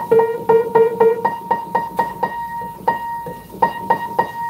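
Upright piano being tuned: one high note struck again and again, about three times a second, while the tuner sets its pin with the tuning hammer. In the first second a note an octave below sounds together with it, an octave check.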